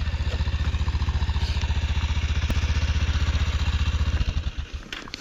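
Motorcycle engine idling with an even, steady beat. It fades out about four seconds in.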